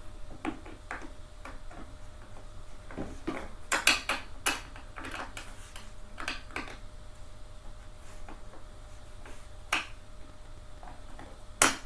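Irregular clicks and knocks from handling gaming-chair parts and screws during assembly, with a cluster of louder knocks about four seconds in and sharp single knocks near the end.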